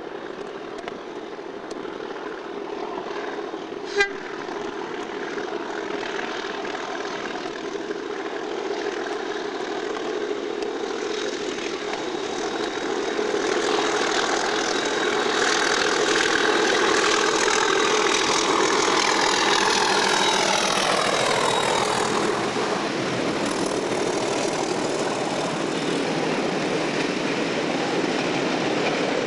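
Class 37 diesel locomotive, with its English Electric V12 engine, hauling loaded tank wagons past. The sound grows louder as it approaches, the engine's pitch falls away as it recedes, and the wagons rumble and clatter over the junction. A short sharp pip sounds about four seconds in.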